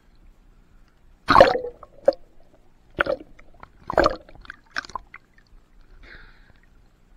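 Water sloshing and splashing against a waterproof camera housing as it dips in and out of the surface: a handful of short, irregular wet bursts, the loudest about a second and a half in.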